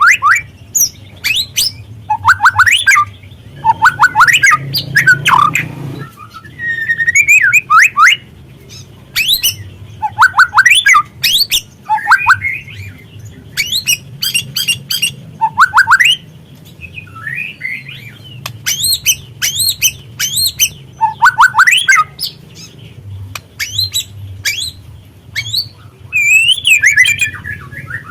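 Juvenile white-rumped shama (murai batu trotol) singing in short loud bursts, one every second or two. The phrases mix quick rising whistles with harsh rapid chatter.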